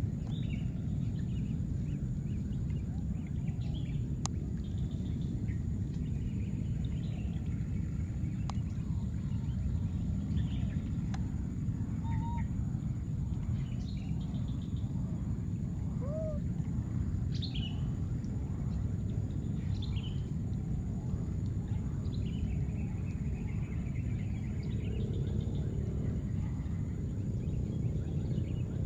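Birds calling in short, scattered chirps and whistles over a steady low rumble and a continuous high-pitched drone.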